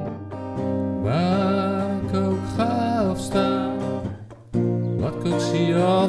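Music: a song with strummed acoustic guitar, a singing voice coming in about a second in, and a short break in the sound just after four seconds before the voice resumes.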